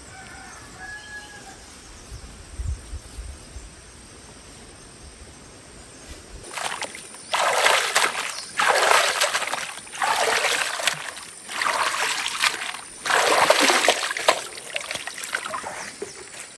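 Water splashing and sloshing in about five loud surges of a second or so each, starting about six seconds in after a quiet stretch.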